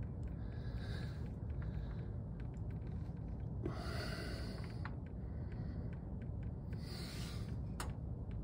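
A person breathing hard close to the microphone, three noisy breaths about three seconds apart, over a steady low rumble. A single sharp click comes near the end.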